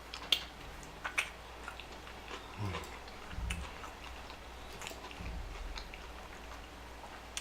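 Close-miked chewing and mouth sounds of someone eating fast food: scattered wet clicks and smacks, with a few soft low thuds in the middle.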